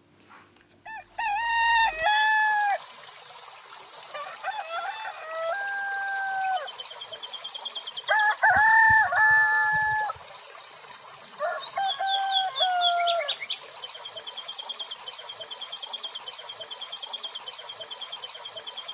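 Roosters crowing: several long crows in turns through the first two-thirds. Under them runs a steady high chirping at about three a second, which continues alone near the end.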